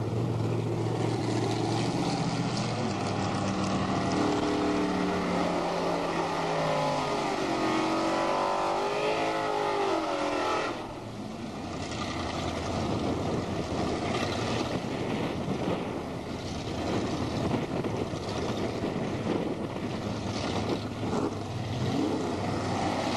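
Drag car's engine revving hard through a tyre-smoking burnout, its pitch climbing and wavering. About eleven seconds in the revs drop off, and the engine runs on with a rough, lower, uneven sound.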